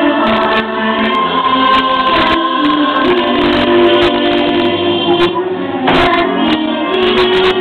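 Fireworks show music with a choir singing held notes. Sharp firework bangs and crackles cut through it, the strongest about two seconds in and about six seconds in.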